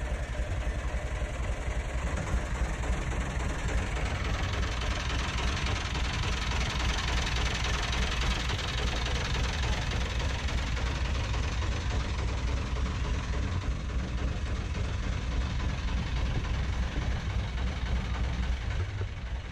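Narrowboat diesel engine idling steadily with a low, even thump.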